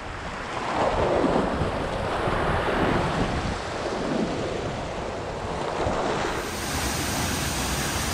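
Ocean surf washing in over rocks in several swells, the strongest about a second in, with wind buffeting the microphone.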